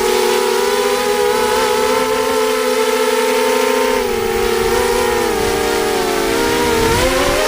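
Quadcopter motors and propellers whining: a steady drone of several close pitches that, about halfway through, spread apart and slide up and down as the motors change speed independently during manoeuvres, with a brief gust of rushing air near the end.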